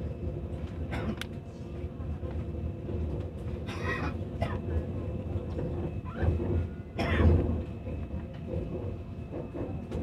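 Cabin noise inside a CRH1A high-speed EMU passenger car: a steady low rumble and hum, with a few brief noises from passengers, the loudest near the middle and about seven seconds in.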